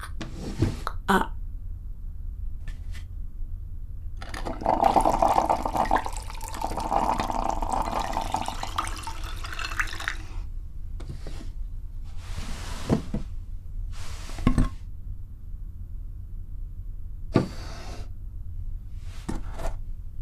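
Small drawers being handled: several short sharp knocks and clicks spread out over the stretch, with a longer, louder noisy passage of about six seconds about a third of the way in.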